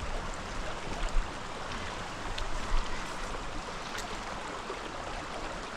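Mountain stream running steadily over rocks, with a few faint ticks on top.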